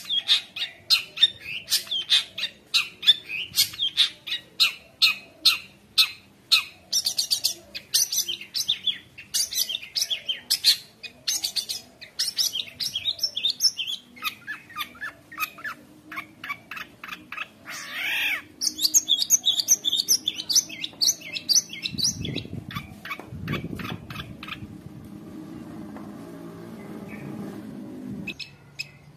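Long-tailed shrike (cendet) singing energetically, a fast run of sharp, high, repeated notes and chatter mixed with other calls, the mimicked calls of a song full of imitations. Near the end the high notes give way to a lower, rougher sound.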